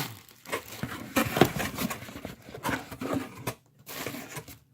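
Rustling and crinkling of bubble wrap and plastic packing material being handled and pulled apart to unwrap a boxed item, with irregular crackles and a sharper crackle about a second and a half in.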